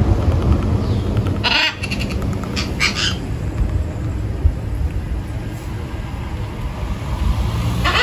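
Parrot chick giving short, pulsed begging calls while being syringe-fed: a few bursts about one and a half to three seconds in, and again near the end, over a steady low background rumble.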